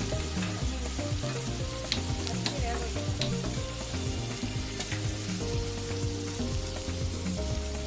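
Sliced onions sizzling as they fry in oil in a metal pot, stirred with a steel spoon that clinks against the pot three times about two to three seconds in.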